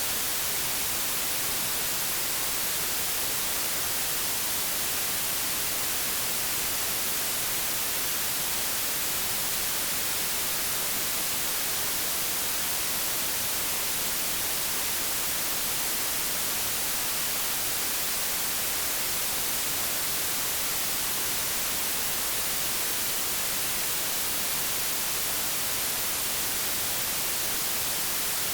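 Generated white noise: a steady, even hiss that does not change.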